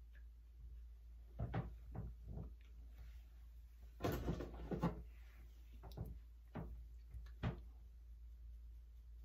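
A few light knocks, then a brief clatter about four seconds in and three more single knocks, as small things are handled and set down.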